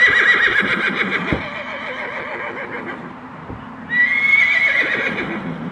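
Horse neighing twice: a long, high, quavering whinny trailing off over the first few seconds, then a second whinny about four seconds in.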